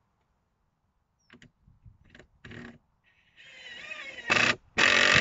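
A few light clicks and knocks, then a cordless drill-driver whines up and runs in two loud bursts near the end, driving a long decking screw into the timber batten of the frame.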